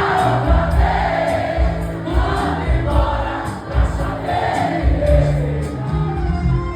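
Live brega music from a band on stage, with a regular bass beat and sung phrases carried by several voices.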